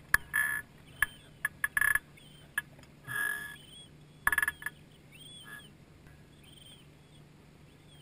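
Young Siberian cranes calling: a string of short buzzy trills and thin high chirps, coming thick and fast at first and thinning out after about five seconds.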